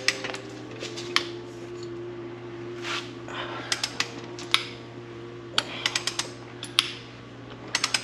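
Long-handled ratchet on a 22 mm socket clicking in short quick runs as it is swung back and forth on the crank hub bolt of a BMW S55 engine, turning the bolt out.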